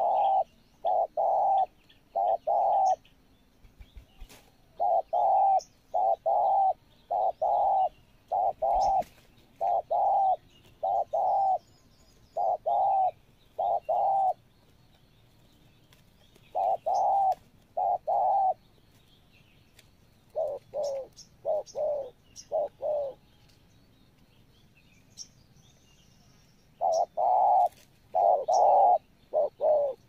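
Spotted doves cooing: runs of repeated low coo phrases, broken by pauses of a few seconds, over faint short high chirps of small birds.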